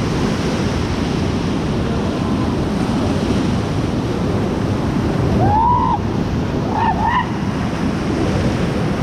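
Loud, steady rush of white-water river rapids, with wind buffeting the microphone. A few brief high calls sound over it about two-thirds of the way through.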